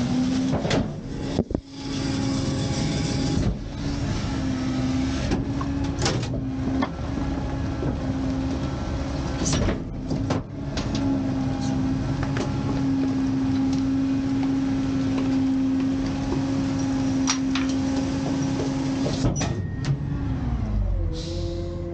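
Rear-end garbage truck's hydraulic packer running a compaction cycle, sweeping and crushing bagged trash into the body. The truck's engine and hydraulics give a steady drone, broken by scattered clanks and crunches. About nineteen seconds in, the drone drops in pitch as the cycle ends.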